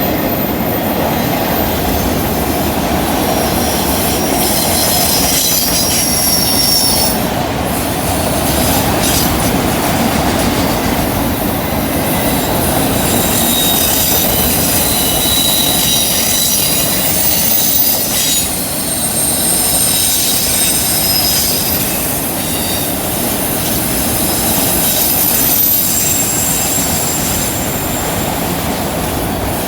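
CN freight train rolling through a curve, its wheels squealing in thin high tones that shift and come and go over the steady rumble and clatter of the cars on the rails.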